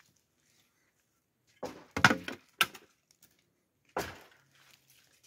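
A clatter of hard knocks about two seconds in, then a single sharp knock about four seconds in.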